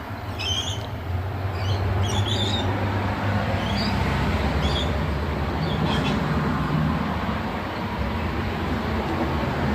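A bird giving a series of short, high chirps, about half a dozen in the first six seconds and growing fainter, over a steady low rumble.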